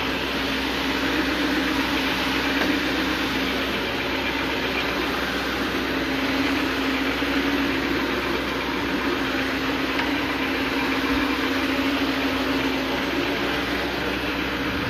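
Counter-rotating brush (CRB) carpet-agitating machine running steadily over the carpet: a constant hum over a rushing noise.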